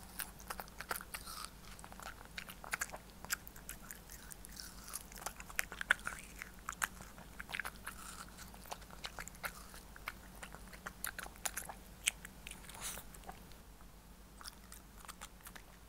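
A Shih Tzu biting and chewing watermelon and its rind, taken from a hand: many short crunches in quick succession, growing fewer near the end.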